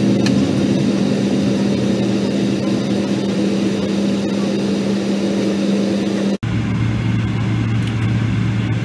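Jet airliner cabin noise while taxiing: the engines at idle give a steady deep rumble with a steady hum. About two-thirds through, the sound drops out for an instant and the hum comes back lower in pitch.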